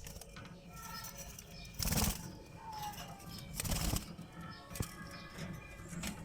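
Baby birds cheeping in short high calls, with two brief flurries of wing-flapping, about two seconds in and just before four seconds.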